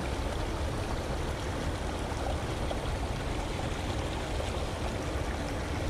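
Steady rush of river water flowing through shallows around a hand holding a catfish, with a few faint ticks.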